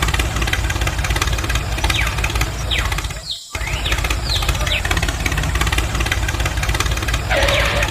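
A small motor running steadily with a fast, even buzz, cutting out briefly about three and a half seconds in.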